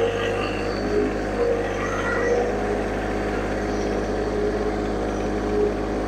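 John Deere 1025R subcompact tractor's three-cylinder diesel engine running steadily as the tractor drives slowly forward.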